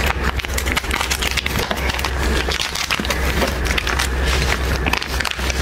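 Crab and shrimp shells crunching and cracking in close-up eating, a dense run of irregular cracks and clicks over a steady low hum.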